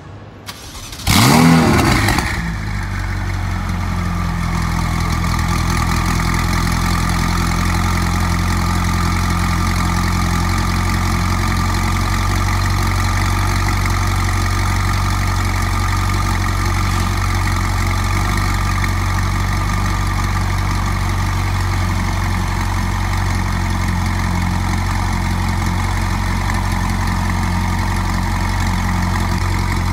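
Ferrari 488 Spider's twin-turbo V8 with an IPE aftermarket exhaust starting up. It gives a loud start-up rev about a second in, then settles into a steady idle.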